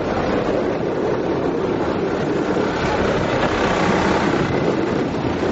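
Boat engine running steadily under way, mixed with wind noise on the microphone.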